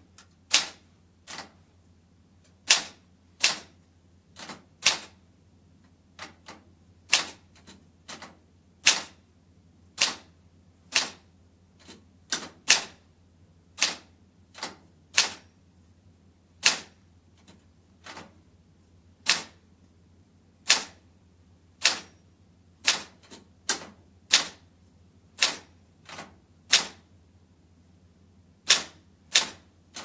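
Manual typewriter typed slowly with two fingers: single sharp key strikes, about one a second, unevenly spaced with the odd quick pair. Heard from about four metres away, over a faint steady low hum.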